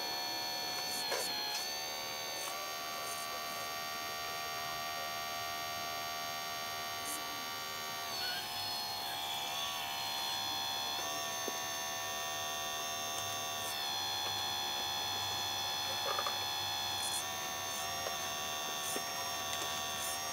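Electric hydraulic pump motor of a Leimbach RC hydraulic model excavator whining steadily, its pitch dipping and shifting several times as the boom, arm and swing are worked, with a few small clicks.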